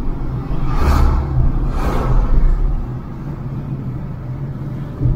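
Engine and road noise inside a moving VW Polo, a steady low rumble with two brief whooshes about one and two seconds in, and a low thump at the very end.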